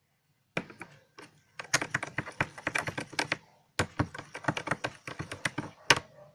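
A stirring stick clacking quickly against the sides of a container while a glue-and-salt-water slime mixture is stirred to thicken it. The clicks come in two runs, with a short break about three and a half seconds in.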